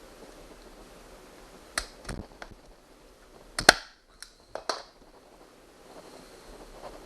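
A few sharp clicks and knocks, then one much louder snap about three and a half seconds in, followed by a couple more clicks, from work with the manual staple gun and the plywood-backed vinyl cushion.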